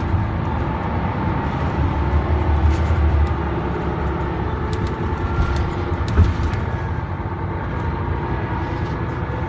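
Volvo DH12D 12-litre six-cylinder turbo-diesel of a Volvo B12M bus pulling the bus along, heard inside the passenger cabin as a steady low rumble. A single short knock comes about six seconds in.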